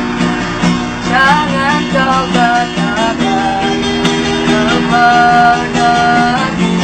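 Street busker singing to a strummed acoustic guitar; the voice comes in about a second in and carries the melody in long held notes until just before the end.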